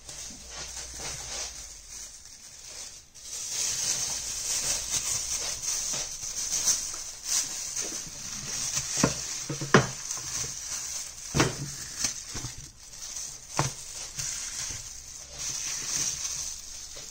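Plastic wrapping rustling and crinkling as a slab of raw pork is unwrapped and handled, with four sharp knocks on the wooden chopping board between about nine and fourteen seconds in.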